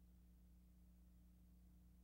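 Near silence with a faint steady low hum.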